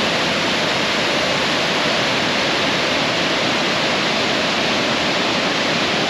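Grand Falls on Shoal Creek: a wide waterfall pouring over a rock ledge, a steady rush of water that comes in suddenly.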